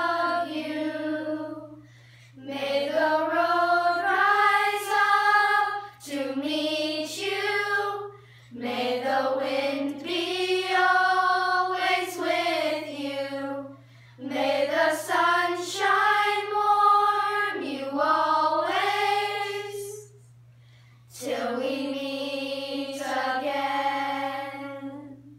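A group of children singing together unaccompanied, in sung phrases with short pauses for breath between them; the last phrase fades out near the end. A faint steady low hum lies underneath.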